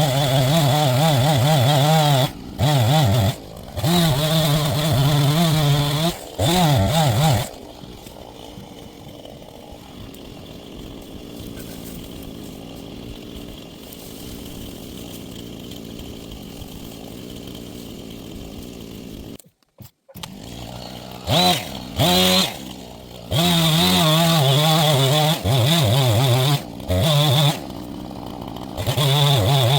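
Husqvarna two-stroke chainsaw cutting an ash tree at full throttle, its pitch wavering under load, with the throttle let off briefly between cuts. For about twelve seconds in the middle it settles to a quieter idle, then revs up again and runs at full speed through the last part.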